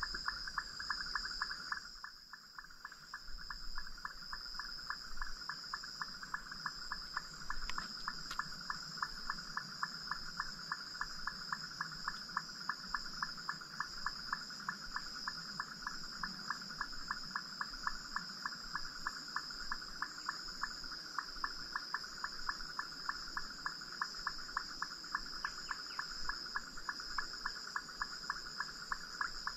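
Insect chorus: a steady high-pitched drone with a rhythmic chirping pulse repeating several times a second.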